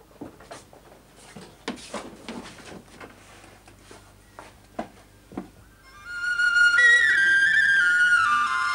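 Faint scattered clicks and knocks, then about six seconds in a Chinese bamboo flute starts a slow melody of held notes stepping up and down, loud and clear.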